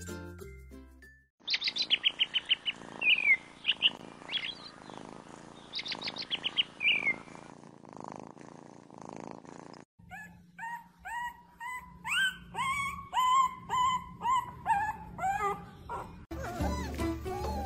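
Baby chicks peeping in quick runs of high chirps, each run ending in a falling note. Then a newborn puppy whimpering in a series of short, rising whines about two or three a second. Background music comes back near the end.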